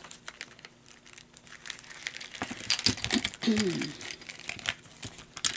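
Plastic packaging crinkling and rustling, with small clicks of plastic tools, as a drawstring pouch of diamond-painting tools is opened and a plastic packet of them is tipped out; the crinkling gets denser about two seconds in.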